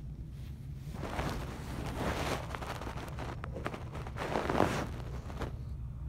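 A person snoring in sleep: two rasping breaths about three seconds apart, the second louder, over a steady low hum.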